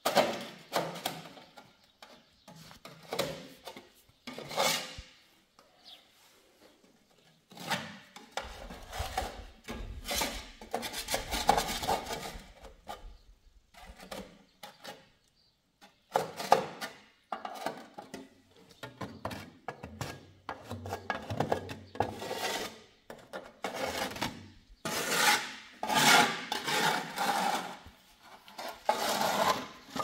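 Hand scraper rasping over a concrete floor in short, irregular strokes, scraping grit and debris into a metal dustpan.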